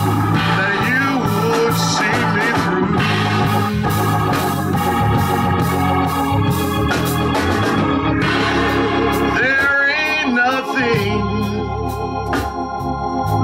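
Organ playing held chords under a man's chanted, half-sung preaching, his voice gliding and wavering in pitch, with a regular beat underneath.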